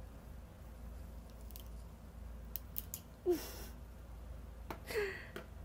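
A woman's short breathy laughs, twice, each falling in pitch, after a few faint mouth clicks.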